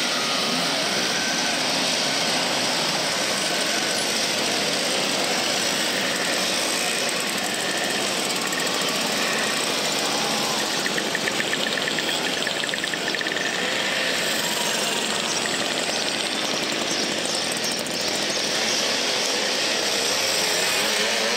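A group of vintage two-stroke mopeds running together as they pull away one after another, a steady mass of rattling engine noise. About halfway through, one engine's rapid firing rhythm stands out above the rest.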